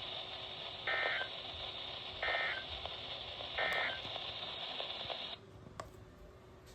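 NOAA Weather Radio SAME end-of-message data bursts: three short two-tone warbling bursts about 1.4 s apart over radio static, marking the end of the weekly test message. The static drops out about five seconds in as the broadcast signal cuts off.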